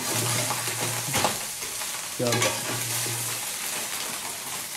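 Food frying in hot oil in a pan with a steady sizzle, stirred with a spatula, with short scraping noises against the pan.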